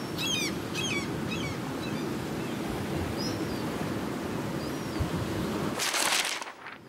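Seaside ambience: a steady wash of waves with short, falling bird calls, several in the first second and a half and one more a little later, and a louder rush of surf near the end.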